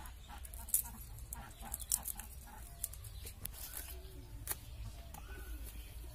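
Chickens clucking over a low steady rumble, with a few sharp clicks and knocks from vegetables being peeled and cut by hand.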